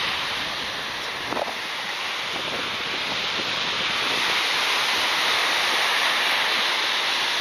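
Surf washing on the beach, mixed with wind noise on the microphone, a steady rushing that swells a little toward the middle.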